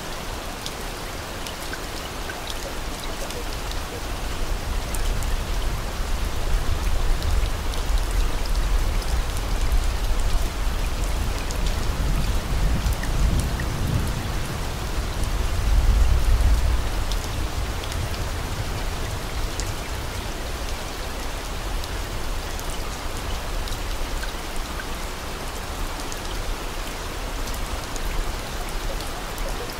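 Steady rain: an even hiss with scattered drop ticks. A low rumble swells through the middle, loudest about halfway through, then fades.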